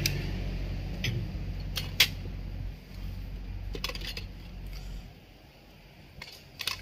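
Light clicks and knocks of plastic and metal as a circuit board is handled and lifted out of a satellite receiver's case, the sharpest about two seconds in and a pair near the end, over a low background rumble that fades away about five seconds in.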